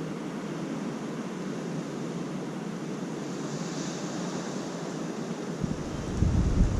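Gusty wind rushing with a steady surf-like hiss. About five and a half seconds in, a stronger gust hits the microphone and adds a loud low rumbling buffet.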